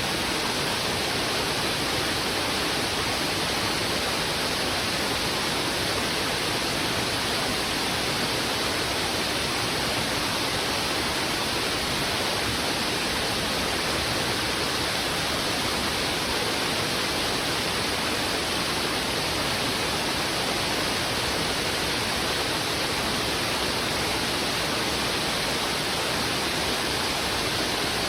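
Heavy river water rushing over rocks in a steady, unchanging flow.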